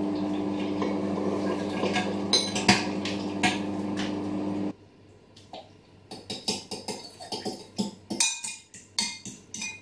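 Microwave oven running with a steady low hum and a few clicks over it, cutting off abruptly a little under five seconds in. After that, a utensil clinks and scrapes irregularly against a bowl as melted butter is stirred.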